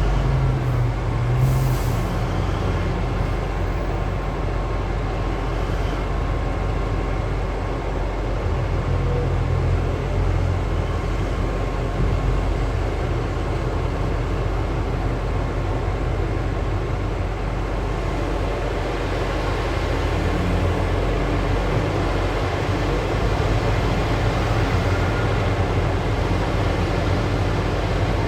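Diesel engines of heavy mining machinery, a large excavator and haul truck, running steadily under load with a low rumble.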